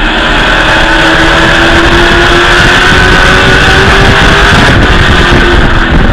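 Race truck's V8 engine at racing speed, heard from inside the cockpit, very loud. Its pitch climbs slowly for about five seconds, then drops near the end.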